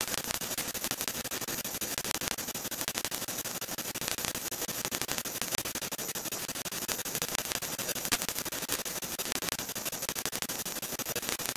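A steady hiss of static, with faint crackling flecks running through it.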